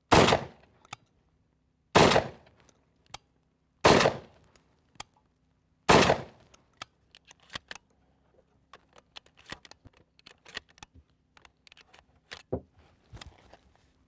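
Benelli M1 semi-automatic 12-gauge shotgun firing target loads: four loud shots about two seconds apart, then a run of small, quieter clicks and knocks for the rest of the time.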